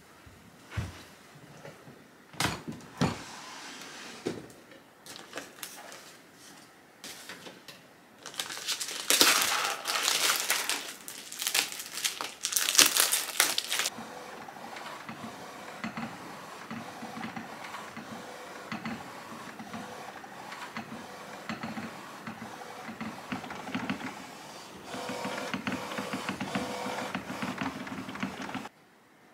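Canon inkjet printer printing a sheet: a steady mechanical whir with repeating passes of the print head, a little louder in the last few seconds as the sheet feeds out. Before it come scattered clicks and a loud stretch of rustling and clattering lasting several seconds.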